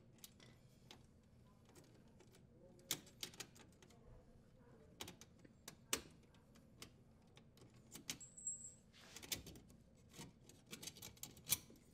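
Scattered small metallic clicks and taps as a strain relief nut is unthreaded and the strain relief and power wires are worked out of a dishwasher's sheet-metal junction box.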